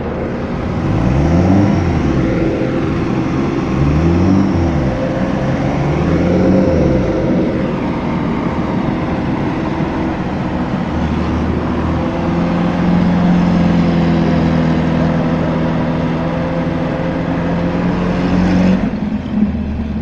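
An off-road 4x4's engine is revved up and down several times, then held at high revs while the vehicle is stuck with its wheels spinning in deep mud.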